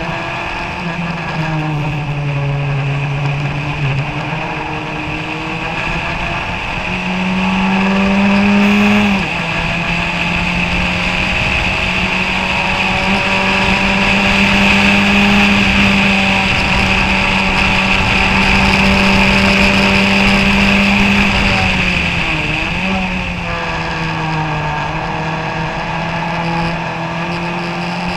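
1991 Kookaburra Formula Ford 1600's four-cylinder Ford Kent engine, heard onboard, running hard at high revs over a steady hiss. The note drops at the start, again sharply about nine seconds in and once more about twenty-two seconds in, climbing back after each drop.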